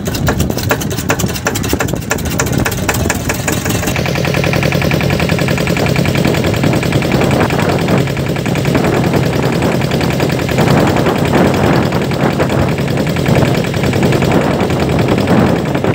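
Small motorboat engine running steadily with a rhythmic chugging, heard from aboard the boat; its sound shifts about four seconds in.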